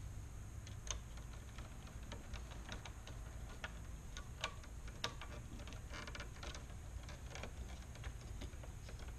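Faint, irregular small clicks and ticks of a screwdriver working the terminal screws of a NEMA 14-50 receptacle as heavy-gauge wire is fastened in, over a low steady hum.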